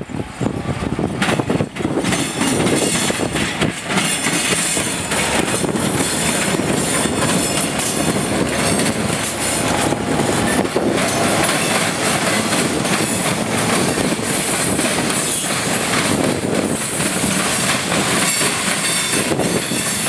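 Canadian Pacific diesel freight train passing at close range. The locomotive rumbles past, then freight cars roll by with a steady clatter of wheels over the rails. The sound swells about two seconds in and stays loud.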